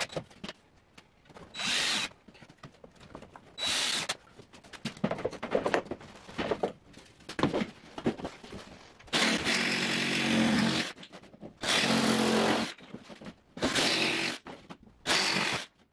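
Cordless drill driving screws into wood: the motor runs in about six short bursts, the longest about a second and a half, with small clicks and rattles of handling between them.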